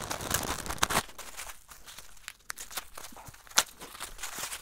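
Plastic wrapping crinkling and rustling as a coiled leather shoulder strap is unwrapped by hand, busiest in the first second. Then scattered small clicks, with one sharper click about three and a half seconds in.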